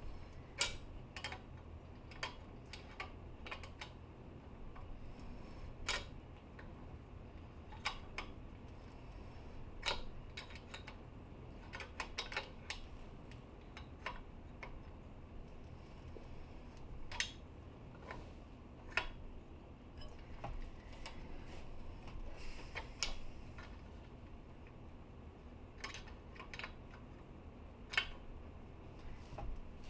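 Light metallic clicks and taps at irregular intervals as an AN wrench is repositioned and turned on the hex of a hose-end fitting, snugging it down in a vise. A low steady hum runs underneath.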